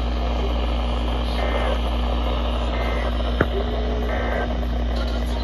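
Three short, faint warbling data bursts of the EAS/SAME end-of-message code, about a second and a quarter apart, heard through steady radio static and hum from a weather radio receiver. A sharp click comes between the second and third burst.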